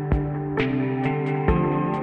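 Ambient background music: sustained tones over light percussive ticks, about two a second.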